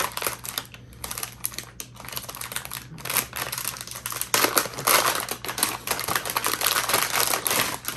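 Packaging and a plastic clamp mount being handled: irregular crinkling and rustling with rapid small clicks, busier from about three seconds in.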